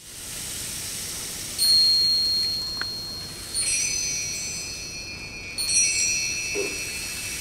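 Metal chimes struck three times, about two seconds apart, each strike ringing on with high, clear, steady tones.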